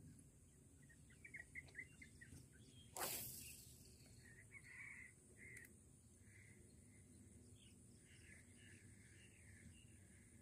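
Faint birds chirping in short calls, with one brief sharp rush of noise about three seconds in.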